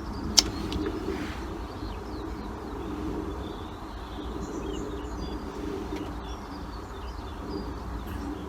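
Pigeons cooing steadily, with small birds chirping faintly higher up, and a single sharp click about half a second in.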